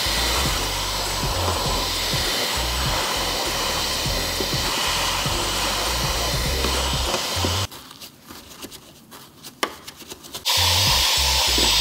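Cordless stick vacuum running steadily with its crevice tool down in an espresso machine's built-in burr grinder, sucking out stale coffee grounds. It cuts out about eight seconds in, leaving light clicks and taps, and a loud steady noise returns near the end.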